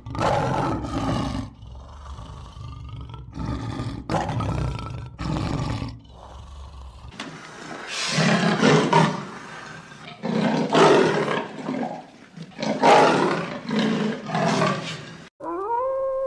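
A lion roaring, a run of deep, rough roars. After a cut, about four harsh, rasping calls from another animal, each about a second long. Near the end a wolf starts a long, steady howl that rises at its start.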